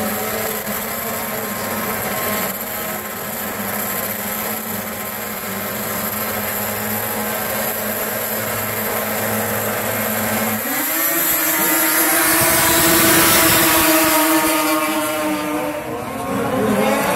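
A pack of two-stroke racing snowmobiles running at idle on the start line, then revving hard and accelerating away about eleven seconds in. Their engine whine rises in pitch and grows louder, peaking a couple of seconds later before easing off.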